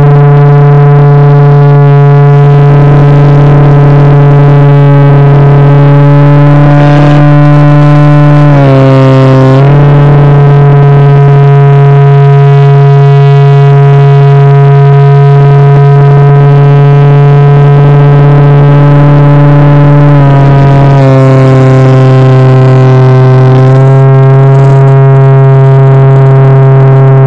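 Model airplane's motor and propeller running with a loud, steady hum, picked up close by the onboard camera. The pitch drops slightly about nine seconds in and again about twenty-one seconds in.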